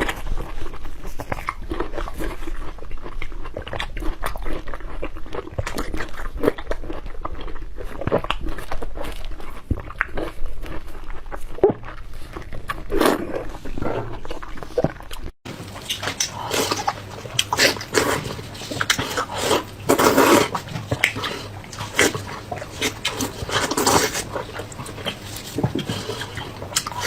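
Close-miked eating: irregular chewing, biting and crunching mouth noises. They break off for an instant about fifteen seconds in and carry on with a different background.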